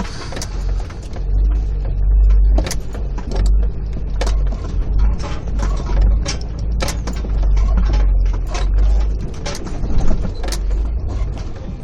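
Four-wheel-drive vehicle crawling through a rocky creek crossing: a steady low engine rumble with irregular sharp knocks and clunks.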